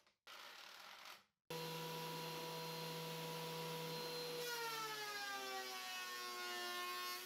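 Ridgid benchtop thickness planer starts running with a steady hum about a second and a half in. When a glued-up maple panel is fed through, the motor's pitch drops as it slows under the cutting load, then begins to climb back near the end.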